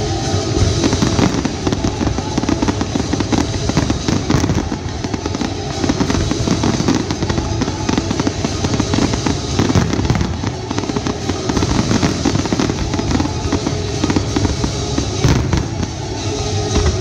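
Aerial firework shells bursting in a dense, continuous barrage of bangs and crackling, with no pause between bursts, over music.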